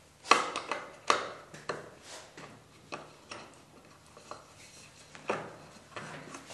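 A small metal hinge handled and set onto a varnished wooden table leaf: irregular light clicks and taps of metal on wood, the sharpest near the start.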